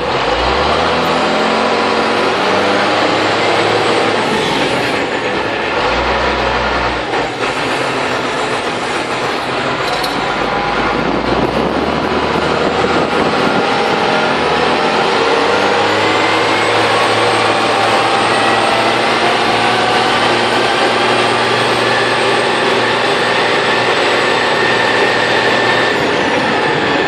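Sisu TD1612 truck's Valmet diesel engine running under load. The engine note rises and drops several times in the first dozen seconds, then climbs steadily and holds at a higher pitch.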